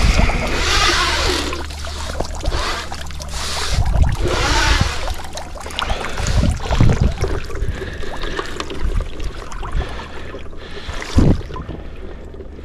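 River water swishing and splashing around a mesh whitebait net as it is worked through the shallows by its wooden handle, with wind rumbling on the microphone. The water noise surges at the start and again about four seconds in, then thins, and there is a single knock near the end.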